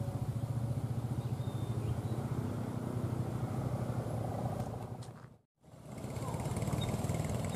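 Passenger train moving away along the track: a steady low engine drone with a fast, even pulsing. The sound breaks off abruptly about five and a half seconds in, then a similar low drone picks up again.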